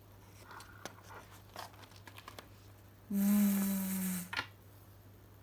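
A woman's voice holding a buzzing "vvv" phonics sound for a little over a second, about three seconds in, after a few faint rustles and clicks of paper pages being handled.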